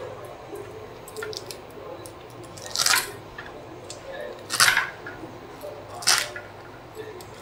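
Scissors snipping through handfuls of brahmi greens: a few faint snips, then three louder crisp snips about a second and a half apart.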